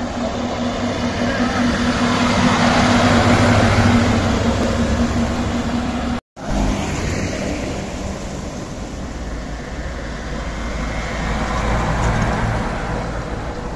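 Vintage WWII military vehicles driving past one after another, their engines running with a steady low hum that swells as each one passes. The sound breaks off briefly about six seconds in.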